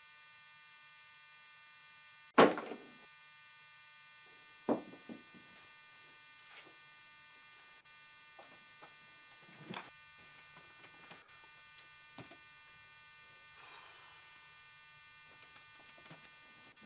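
Steady electrical hum and buzz of a recording feed. Over it comes a loud knock about two seconds in, a smaller knock a couple of seconds later, and a few faint knocks and handling noises.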